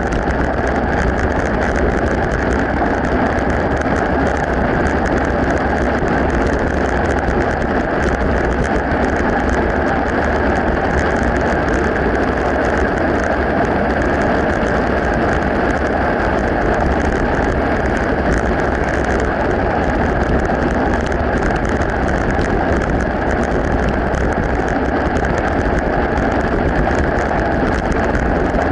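Mountain bike tyres rolling steadily over a gravel path with a fine crackle, mixed with wind rumble on the microphone.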